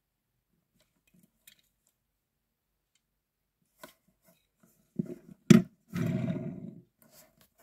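Small die-cast toy car being handled with faint clicks, then set down on a table with a sharp click about five and a half seconds in, followed by a short rolling rumble of its hard plastic wheels across the surface.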